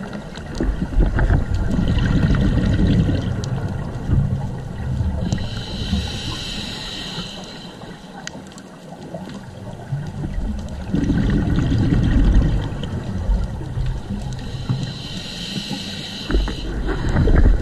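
Scuba diver breathing through a regulator underwater: hissing inhalations through the demand valve, each followed by a rumbling burble of exhaled bubbles, in a slow cycle repeating a few times.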